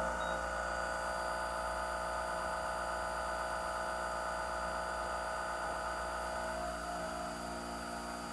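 ProtoTRAK RMX CNC bed mill running a programmed cut: the spindle turns at about 3500 rpm while the end mill feeds down into the workpiece to start a slot, with mist coolant spraying. A steady hum and whir made of several held tones over an even hiss.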